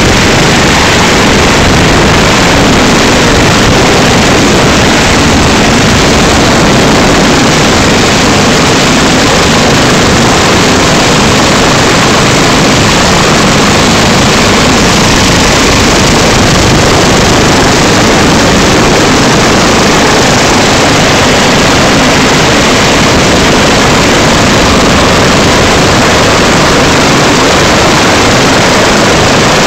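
BK 117 twin-turbine helicopter hovering, heard from its open cabin door: a loud, steady din of rotor and engines with no let-up.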